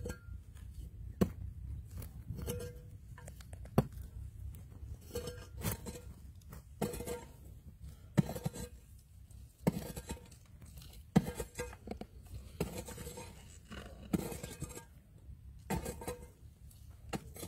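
A metal digging tool chopping into hard, dry clay soil in regular strokes about every second and a half, each a sharp knock, some with a short metallic ring, with scraping of earth between strokes.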